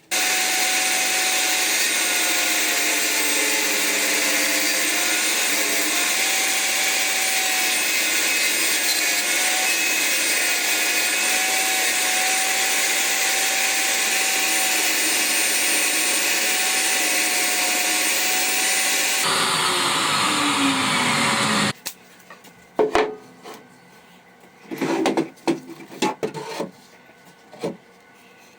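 An electric power tool motor running steadily for about twenty seconds, then switched off and winding down with a falling whine. After that, a few sharp knocks and rubbing as wood is handled.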